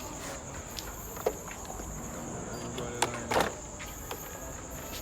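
Cricket chirping steadily in the background, with a few light knocks and clatter, the loudest about three seconds in.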